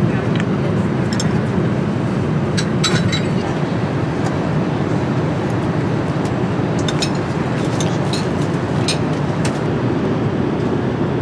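Steady drone of an airliner cabin in flight, the engine and airflow noise heard from a passenger seat, with a few light clicks and taps over it.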